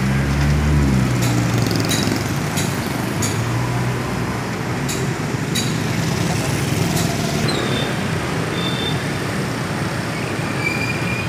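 Street traffic over a level crossing: car and motorcycle engines passing, with a small engine close by and changing pitch at the start. Several sharp clicks come in the first half.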